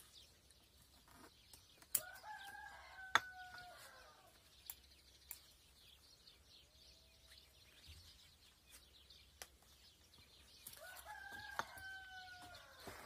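A rooster crowing twice, once about two seconds in and again near the end, each crow about two seconds long. Sharp clicks throughout come from pliers and wire being handled; the loudest is just after three seconds.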